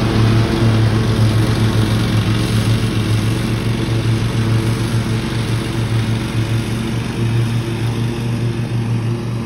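Cub Cadet zero-turn riding mower running at a steady mowing speed, its engine holding one even pitch and growing slowly fainter as it drives away.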